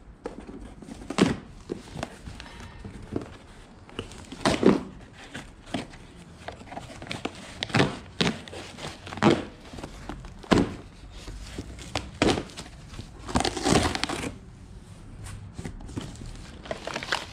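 Cardboard box being opened and unpacked by hand: irregular crinkling and tearing of cardboard and paper, with sharp knocks and rustles every second or two.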